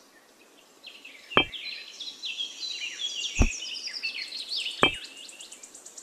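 Three sharp knocks, about a second and a half apart, as miniature clay bricks are set down by hand, over birds chirping and twittering; a high, fast insect trill builds in near the end.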